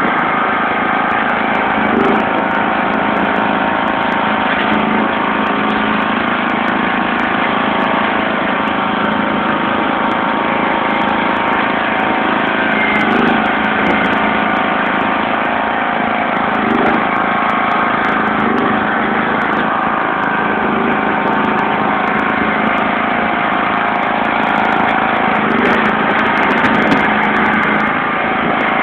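The OHV engine of a 1991 John Deere LX176 lawn tractor runs steadily under load as the tractor plows snow.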